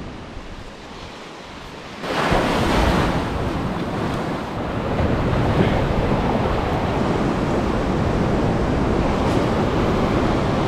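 Ocean surf washing against a rocky shore, mixed with wind buffeting the microphone. It steps up sharply about two seconds in and then stays loud and steady.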